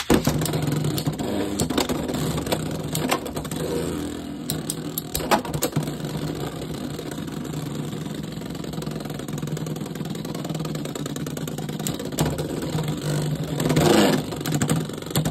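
Two Beyblade X spinning tops, Hasbro's Helm Knight against Arrow Wizard, whirring in a plastic stadium with a steady hum and repeated sharp clacks as they collide. Near the end there is a louder rattling burst as one top is knocked against the stadium edge.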